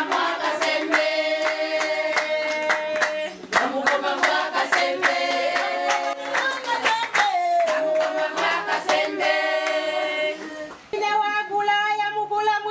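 Several voices singing together in long held notes, with hand clapping throughout.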